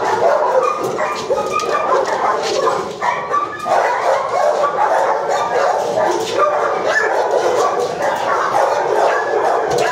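Several dogs in shelter kennels barking at once, an unbroken overlapping din of barks.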